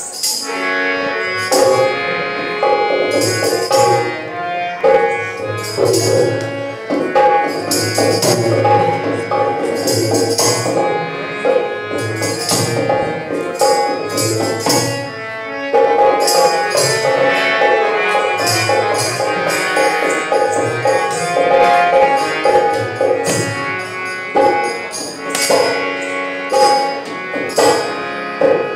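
Live Rajasthani folk music: a hand drum keeps a steady beat under a sustained harmonium-like melody, with jingling percussion on top.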